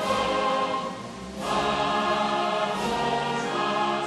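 Choral music, a choir holding sustained chords, with a brief dip about a second in before a new chord comes in.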